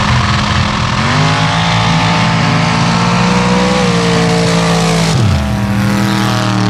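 Formula Offroad sand drag cars running flat out at high revs, engines held steady at a high pitch. About a second in, another engine note climbs. At about five seconds, one engine's revs drop sharply as it comes off the throttle.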